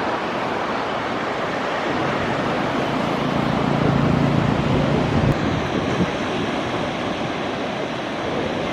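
Sea surf washing on the shore, mixed with wind on the microphone, a steady loud rush, with a low hum between about three and five seconds in.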